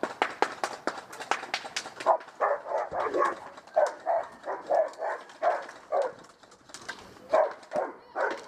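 A fast run of sharp clicks, about five a second, during the first two seconds, typical of airsoft guns firing. From about two seconds in, a dog barks over and over.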